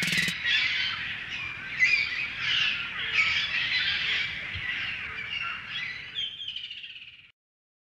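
Birds chirping and calling in a dense chorus, with a few sharp clicks right at the start. The sound cuts off suddenly near the end.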